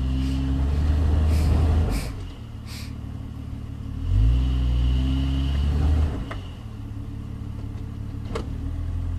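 Jeep Cherokee XJ engine revving under load as it crawls up a steep rock ledge: one long surge at the start, a lower stretch, then a second surge about four seconds in before it eases off. A few sharp clicks or knocks sound over the engine.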